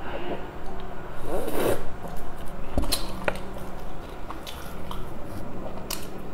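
Close-miked eating sounds: a slurp through a drinking straw about a second and a half in, then chewing and the handling of a soft sesame burger bun, with a few sharp clicks. A faint low hum runs underneath.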